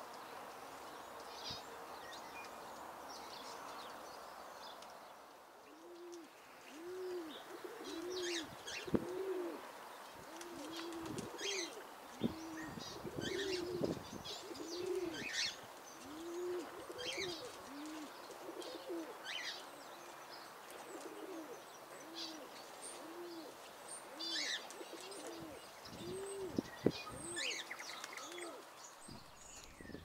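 Doves cooing: a soft, low, arched call repeated about once a second, with small birds' short high chirps scattered over it.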